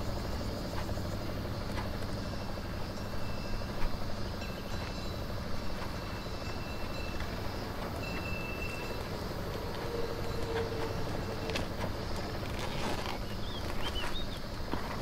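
A cardboard box being handled and its plastic wrap picked at: light scrapes and a few small taps over a steady low background rumble, with a few faint high chirps near the end.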